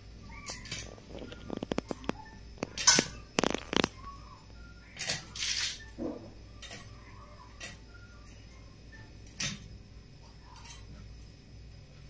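A whole fish being scaled against the curved blade of a bonti: short rasping scrapes as scales come away, with a quick run of clicks about a second and a half in, the loudest strokes around three and five seconds in, and scattered fainter scrapes after.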